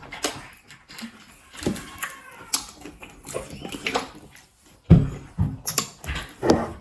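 Close-miked eating of pounded yam and pepper soup: irregular wet chewing and lip smacks with sharp mouth clicks, a louder run of smacks about five seconds in.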